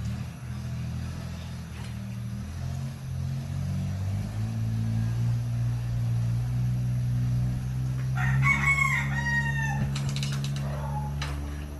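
A rooster crows once, about eight seconds in, over a steady low drone.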